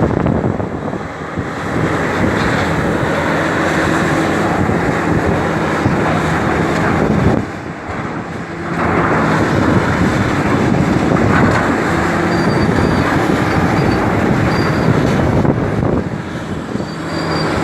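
Large hydraulic excavator's diesel engine running under load, a heavy dense mechanical noise with faint steady engine tones, easing briefly a few times. Wind buffets the microphone.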